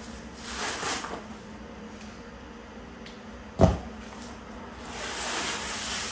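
Cardboard packaging and a plastic-wrapped decal sheet rustling and crinkling as a dirt-bike graphics kit is unpacked, with a single sharp thump about three and a half seconds in.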